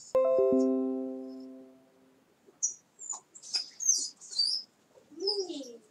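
A chime-like chord of a few quickly struck notes that rings and fades over about two seconds. It is followed by a run of short, high chirping squeaks and, near the end, a brief whine that rises and falls in pitch.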